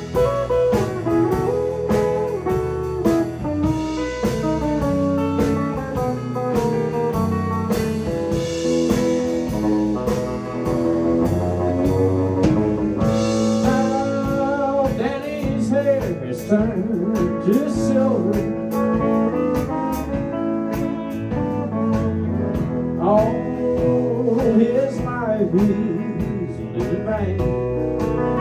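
Live band playing an instrumental break: a lead line with string bends on a semi-hollow electric guitar, over electric bass and drums, in a slow country-blues style.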